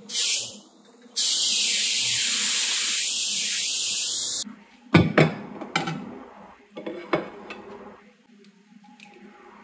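Kitchen sounds: a brief hiss, then a loud, steady hiss for about three seconds that cuts off sharply, followed by a few knocks and clinks of dishes and utensils.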